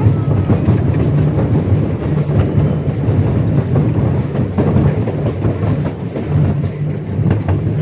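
Park railroad train running along the track: a steady rumble with scattered clicks of the wheels over the rails.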